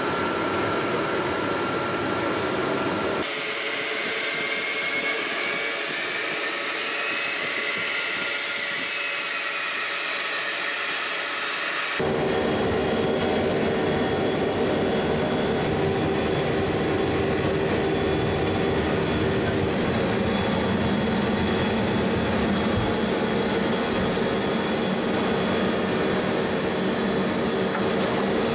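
Aircraft turbine engine noise: a steady whine and rush on the ramp, then a continuous engine drone heard from inside the cockpit. The sound changes abruptly twice, once a few seconds in and again just before the halfway point.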